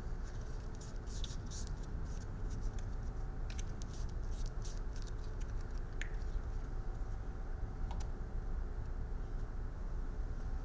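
Scratching and light clicking as a black door glass run seal strip is handled and pressed into a truck door's access opening. The ticks come thickest in the first few seconds and then thin out, over a steady low hum.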